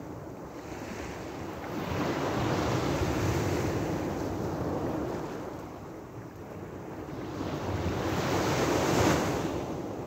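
Small sea waves breaking and washing up a pebbly beach, swelling twice, the second wash loudest near the end.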